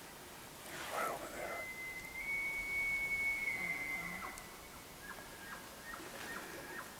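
Distant bull elk bugling: a rising note climbs into a long, high whistle held for about three seconds, followed by a run of short grunting notes.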